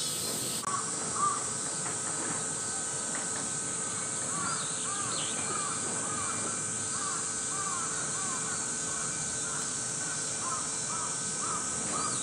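Gibbons calling: a long series of short, rising-and-falling hooting notes, about two a second, over a steady high hiss.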